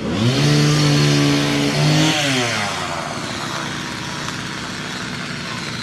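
Chainsaw revved up sharply, held at high speed for about two seconds, then dropped back to run steadily at idle.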